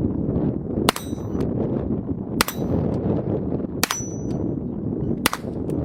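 Four .22 LR rifle shots from a Chiappa M4-22 about a second and a half apart, each followed by a bright ringing ping of a steel target being hit. A steady low rumble of wind noise lies under them.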